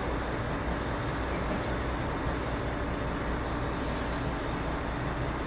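Steady background noise of a garage: an even hiss with a constant low hum underneath, no separate knocks or events.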